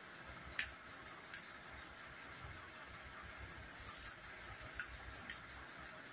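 A steel serving spoon clicks against the curry bowl and plates as food is served: four light clicks, the sharpest about half a second in, over a faint steady hiss.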